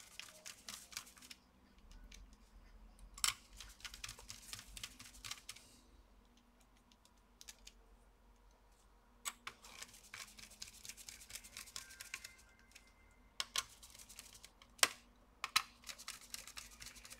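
Small irregular clicks and scratchy scraping from handling a laptop's copper heat-pipe cooler and its screws while it is seated on the processor. The sounds come in several short clusters with quiet gaps between them.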